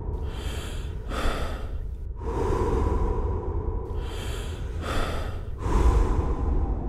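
Heavy human breathing, several slow breaths in and out one after another, over a low steady hum.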